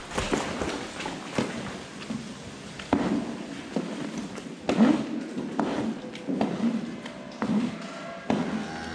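A long-handled scraper pushing wet manure along a concrete barn alley: irregular scraping strokes and wet thuds about once a second, mixed with footsteps in the muck.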